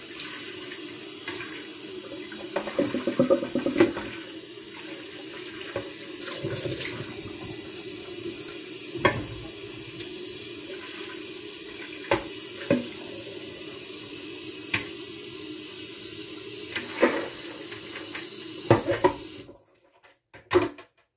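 Kitchen tap running into a plastic bowl in the sink, water splashing steadily, with a few sharp knocks along the way. The running water stops near the end.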